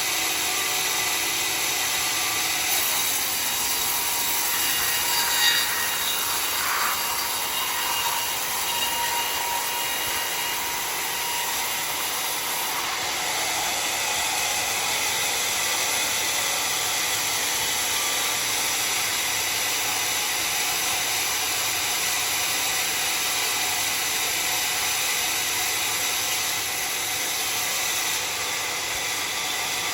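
Sawmill blade cutting through a log of dry, very hard acacia wood, a steady noise that holds without a break.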